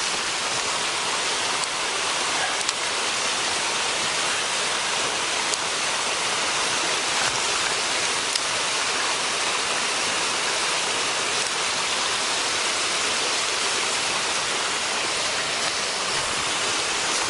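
Mountain stream water rushing over rocks: a steady, even hiss of flowing water, with a couple of faint clicks.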